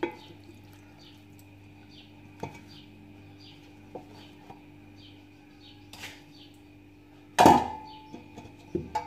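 A raw whole chicken being handled and rubbed with marinade inside a stainless-steel pot, with a few knocks against the pot; the loudest, about seven and a half seconds in, rings briefly. Faint high chirps repeat about twice a second in the background.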